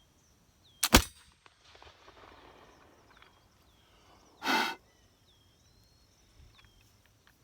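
Flintlock pistol firing: a quick click of the flint and pan then the loud crack of the shot, about a second in, echoing briefly. A short breathy rush follows a few seconds later, with birds chirping faintly.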